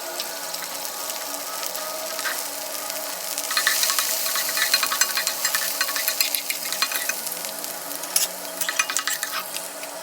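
Green and red bell peppers frying in hot oil in a pan and being stirred: a steady sizzle with crackling that gets louder about three and a half seconds in and eases near the end.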